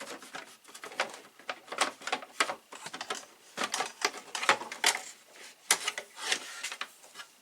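Hands working on the plastic back of a flat-screen TV: a run of irregular clicks, light knocks and rattles as the screws and back panel are handled.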